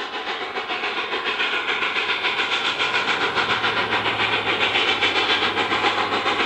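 Steam locomotive's exhaust beat from the blast pipe: rapid, even chuffs about five a second, the engine working hard, growing louder over the first few seconds.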